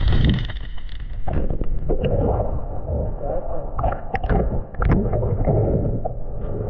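Muffled underwater noise picked up by a camera in its waterproof housing: a low rumble of moving water with scattered bubbling pops and clicks.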